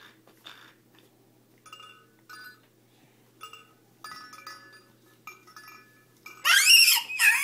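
Roly-poly chicken toy chiming as it wobbles: about half a dozen short tinkling chimes at the same few notes, one after another. Near the end a baby gives a loud high-pitched squeal that rises and falls.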